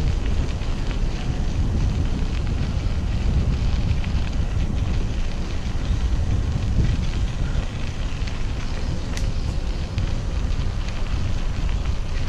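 Wind buffeting the microphone, a steady low rumble, with a single sharp click about nine seconds in.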